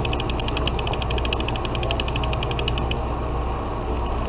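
Conventional fishing reel being cranked to reel in line, its gears and anti-reverse pawl giving a rapid, even clicking that stops about three seconds in.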